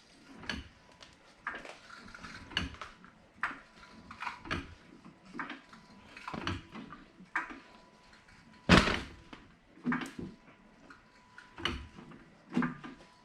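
Car jack being worked to lift the car: a string of short metal clanks and knocks, roughly one a second, with one loud clank a little before nine seconds in.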